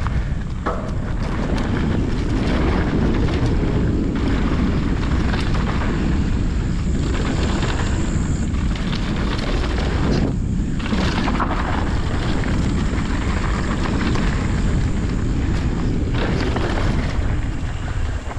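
Wind roaring over the microphone of a mountain biker's camera during a fast downhill trail run, mixed with the riding noise of the bike on the dirt.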